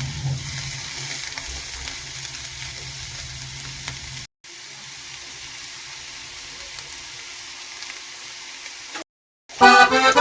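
Food frying and sizzling in a pan, a steady hiss broken by two short cuts. Loud music comes in near the end.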